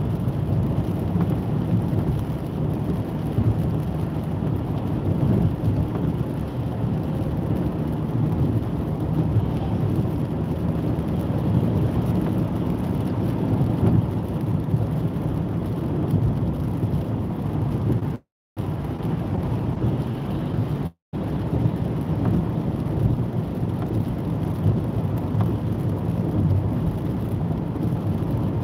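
Car driving on a wet motorway, heard from inside the cabin: steady tyre and road noise on the wet surface. The sound drops out twice for a moment past the middle.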